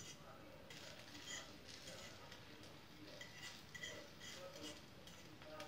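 Faint, irregular ticks and scrapes of a fork working soft scrambled omelette eggs around a ceramic non-stick frying pan.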